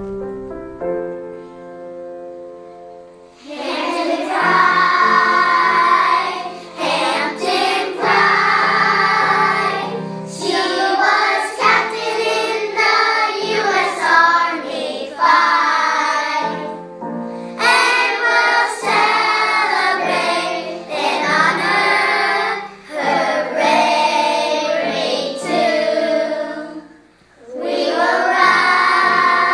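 Children's choir singing a song over instrumental backing. A short instrumental introduction leads in, and the voices come in about three seconds in.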